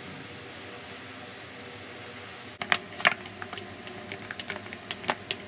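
Steady low hum, then from about halfway a run of irregular sharp clicks and taps as hands knead paratha dough in a stainless-steel bowl.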